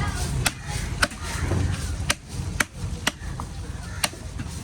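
Knife chopping through a grouper: about six sharp strikes at irregular intervals.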